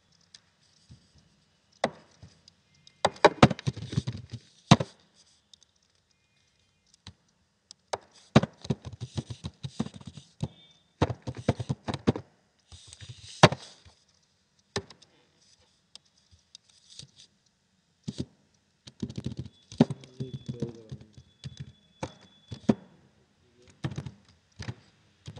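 Computer keyboard typing in several quick bursts of key clicks, with single clicks in the gaps between.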